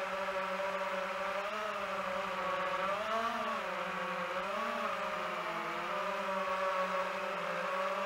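DJI FPV quadcopter's propellers whining in flight: a steady multi-tone hum whose pitch swings up and down a few times as the throttle changes.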